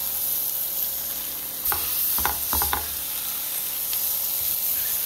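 Mutton snapper fillets and sliced onions and peppers sizzling steadily in a hot frying pan, with a few short knocks about two seconds in.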